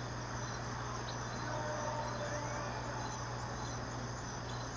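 Steady chirring of crickets and other insects, with a low steady hum underneath.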